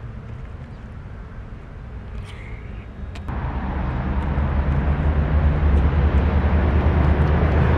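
Road traffic: a low vehicle rumble that jumps in level about three seconds in and then swells into a loud, low engine drone that keeps growing as a vehicle comes closer.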